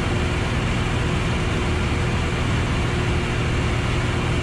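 Piper Arrow's single piston engine and propeller running steadily in cruise, heard inside the cockpit as an even drone with a low hum and a faint steady tone above it.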